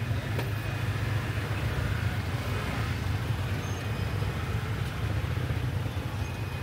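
Several motor scooters running at idle and edging forward at close quarters in a jammed lane, a steady low engine hum.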